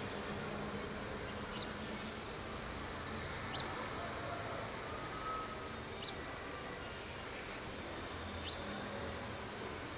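Steady outdoor background hum, with a short high chirp repeating about every two and a half seconds.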